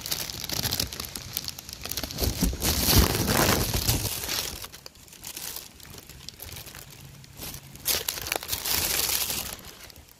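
Clear plastic bag crinkling and rustling as it is handled. The sound comes in loud spells over the first few seconds and again near the end.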